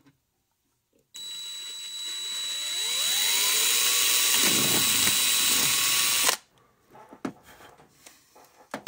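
Cordless drill boring through a CB radio's circuit board to enlarge a hole. It starts about a second in, its motor whine rising in pitch as it spins up and then holding steady, and cuts off abruptly after about five seconds. A few light handling clicks follow.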